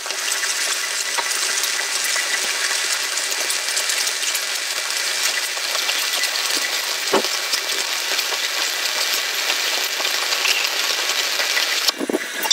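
Shielded metal arc (stick) welding: the arc of a covered electrode runs with a steady crackling hiss while laying a fill bead on steel plate, then breaks off about twelve seconds in.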